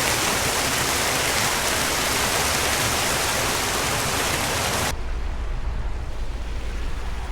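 A waterfall's steady rushing roar. About five seconds in it cuts suddenly to a duller, lower rumble.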